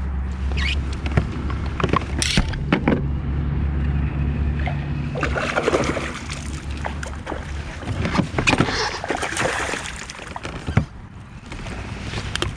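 Water splashing and knocks against the kayak as a hooked bass is fought to the side and brought aboard. A steady low hum runs under the first half, with two sharp knocks early on and the splashing strongest in the middle and toward the end.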